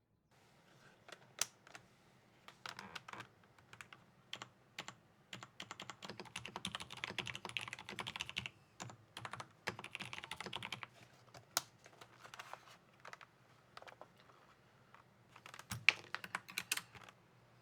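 Typing on a TEX Shura mechanical keyboard with Kailh Midnight Pro silent tactile switches, ABS double-shot keycaps, a steel plate and a plastic case. The keystrokes come in irregular runs, with two fast dense flurries in the middle and a few louder single key strikes, the loudest near the end.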